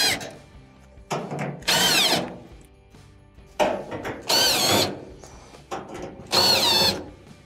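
Cordless drill-driver backing Phillips screws out of a dryer's front bulkhead: three short bursts of motor whine, each about a second long, with the pitch shifting as each screw turns out.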